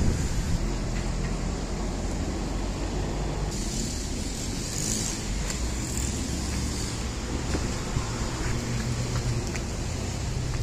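Town street traffic: car engines running at low speed as vehicles pull past and turn nearby, a steady low rumble.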